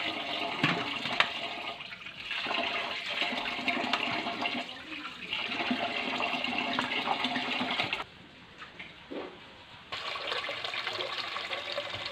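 Tap water running and splashing into a stainless-steel bowl as raw chicken pieces are rinsed. The flow stops about two-thirds of the way through and starts again a couple of seconds later.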